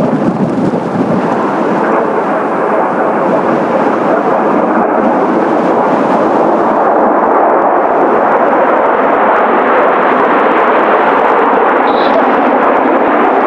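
Steady, loud roar of Kawasaki T-4 jet trainers' turbofan engines in flight, mixed with strong wind buffeting the microphone.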